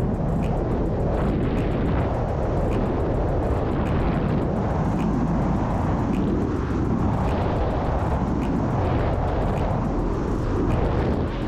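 Steady wind rush over the microphone with tyre and road noise from a Nanrobot D6 electric scooter riding at speed on an asphalt path.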